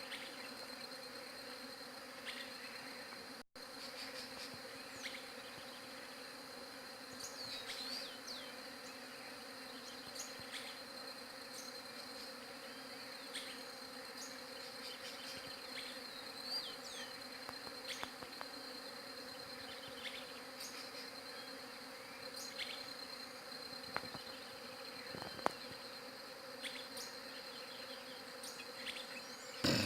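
Many bees buzzing together in a steady hum, with a steady high-pitched trill over it and scattered short high chirps.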